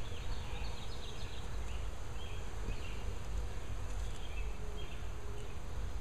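Honey bees buzzing around an open hive and a frame lifted out of it, a steady hum with no breaks.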